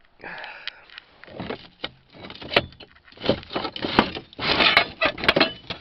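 Scrap steel clanking and scraping together as a length of metal pipe is worked free and pulled out of a pile of scrap, a run of knocks and rattles that gets louder and busier about halfway through.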